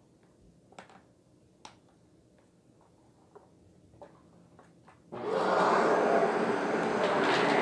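Shark vacuum cleaner switched on about five seconds in, its motor starting abruptly and then running with a loud, steady whir. Before that there are only a few faint clicks.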